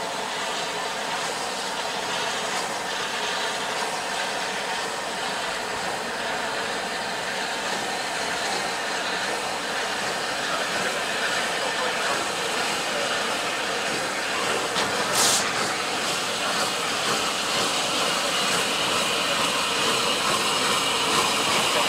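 Rebuilt Bulleid Battle of Britain class Pacific steam locomotive 34053 pulling slowly away with a train, a steady hiss of steam from around its front end, growing slightly louder as it comes closer. There is one brief sharp click about fifteen seconds in.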